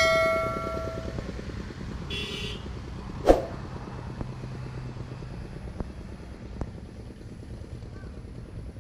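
Notification-bell chime from a subscribe-button animation, ringing out and fading over about a second. A short buzzy sound effect follows, then a sharp click about three seconds in, all over a steady low rumble.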